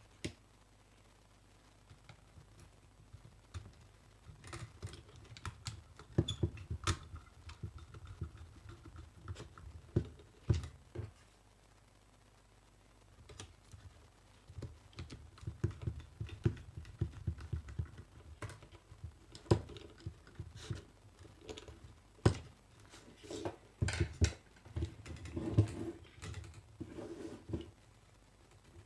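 Handling noises of hand wiring on a tabletop: irregular small clicks, taps and rustles as wires are bent and pushed into the screw terminals of a contactor and overload relay and a small screwdriver works the terminal screws. The noises pause briefly near the middle.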